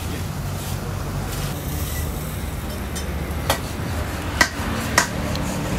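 Three sharp metal clacks in the second half, as a metal spatula strikes the steel flat-top griddle while chopping kebab meat, over a steady low rumble.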